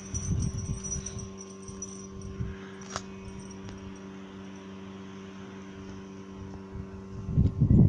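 Wind buffeting the microphone in low rumbling gusts: a short gust in the first second, then much stronger gusting near the end. A steady low hum runs underneath.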